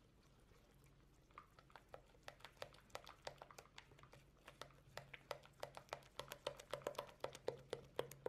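Silicone spatula stirring thick batter in a plastic mixing bowl: soft wet clicks and slaps, several a second, starting about a second and a half in and growing quicker and louder toward the end.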